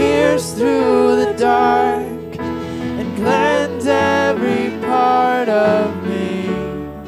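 Worship song playing: acoustic guitar accompaniment under a wavering lead melody, which fades out about six seconds in, leaving the accompaniment.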